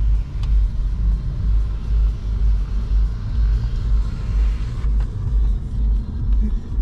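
Low road and engine noise inside the cabin of a moving Mercedes CLA. Over it the electric sunroof motor runs as the glass slides open, cutting off sharply about five seconds in.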